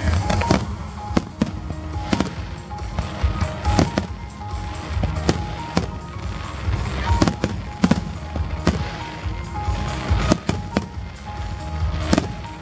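Aerial fireworks bursting in a rapid, irregular series of sharp bangs with deep booming, over music playing.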